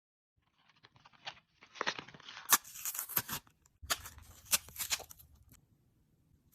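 Slime being worked by hand, giving a run of crackles and sharp pops, with the loudest snaps about two and a half and four and a half seconds in. It dies away a second before the end.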